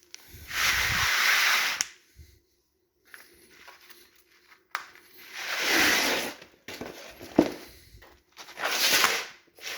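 Rustling, hissing noise in three bursts of about a second each, with a couple of sharp clicks between them.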